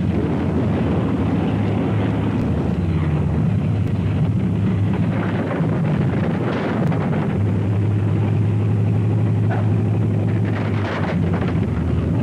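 Propeller aircraft engines droning steadily, with wind noise over the microphone.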